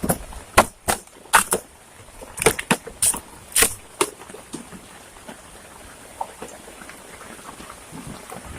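A quick run of sharp woody cracks and knocks, about a dozen in the first four seconds, then a steady faint hiss with scattered small ticks.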